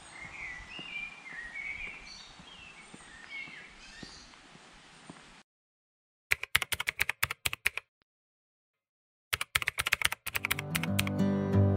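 Birds chirping in woodland, fading out over the first five seconds. After a short silence come two quick runs of keyboard-typing clicks, a typing sound effect for a title being typed out, and guitar music starts near the end.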